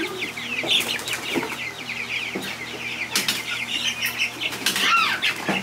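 A brooder tub full of young meat chicks peeping constantly, with a flurry of wing flapping as one bird flutters up. A few sharp knocks come as a wooden-framed screen lid is set on the tub.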